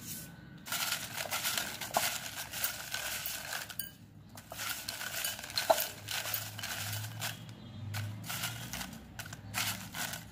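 Folded paper slips stirred and tossed by hand in a glass bowl: a papery rustling with knocks and clinks against the glass, one sharp clink about six seconds in, and a short lull around four seconds in.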